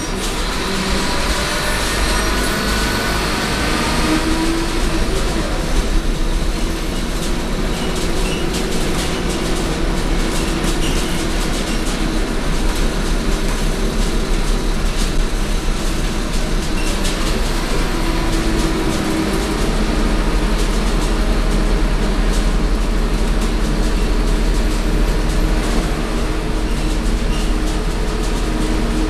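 Scania K230UB city bus under way, heard from inside the cabin: the rear-mounted Scania DC9 five-cylinder diesel runs with a steady deep rumble, its note shifting a few times as the bus drives. Road noise and frequent rattles from the interior fittings run alongside.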